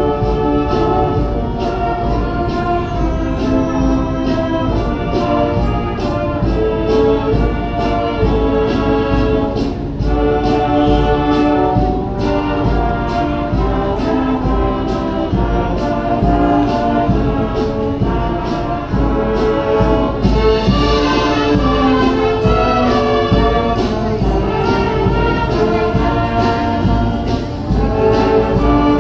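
Live band music from a brass and wind band, playing sustained chords over a steady low end. The sound grows brighter for a few seconds about two-thirds of the way through.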